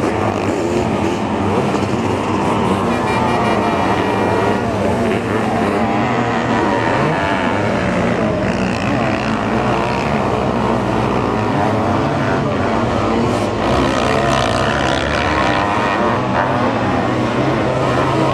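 Sidecar motocross outfits' motorcycle engines revving hard, the pitch rising and falling without pause as the riders accelerate and back off.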